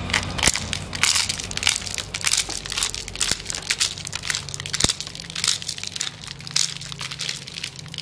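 Dried maize kernels being torn off a cob twisted by hand through a homemade pipe corn sheller lined with bolts, a dense, irregular crackling. Shelled kernels patter onto a concrete floor.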